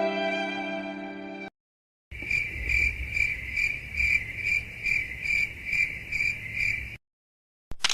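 A sad violin tune ends about a second and a half in; after a short gap comes the stock crickets chirping effect, steady evenly spaced chirps about two and a half a second for about five seconds, the cue used for an awkward silence.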